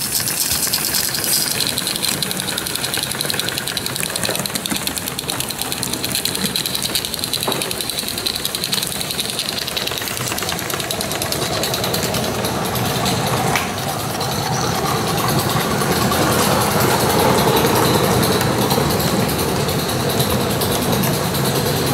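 Gauge 1 Aster BR 86 live-steam tank locomotive running with a rapid, even exhaust beat, then its goods wagons rolling past, wheels rattling on the track. It grows louder past the middle as the train comes close.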